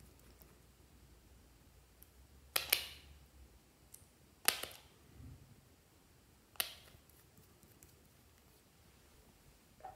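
Sharp clicks and taps from a glass nail polish bottle and its brush cap being handled, over quiet room tone. There is a double click about two and a half seconds in, single clicks near the middle and later, and a faint one at the end.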